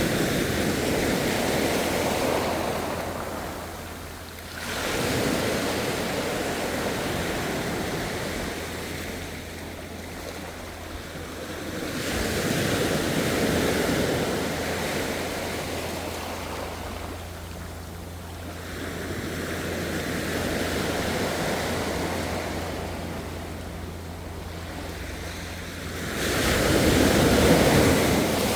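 Ocean surf: waves swelling and receding in slow cycles roughly every seven seconds, the loudest wave near the end.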